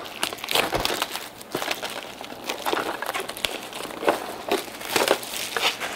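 Plastic shrink-wrap being peeled off a small cardboard collector's box and crinkled in the hands: an irregular run of crackles and rustles.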